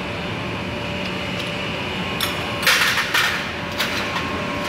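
Hand tools clattering and scraping on a scooter engine being taken apart, in a few short harsh bursts about two to three seconds in. A steady workshop hum runs underneath.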